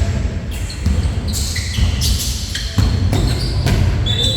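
Basketballs bouncing on a wooden gym floor, with short high squeaks in between, echoing in a large hall.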